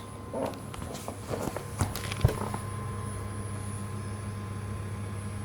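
DenisNetwork C40 portable compressor fridge running, its compressor and fan giving a steady low hum with a faint high whine. In the first couple of seconds several clicks and knocks of handling sound over it, the loudest a sharp knock a little after two seconds.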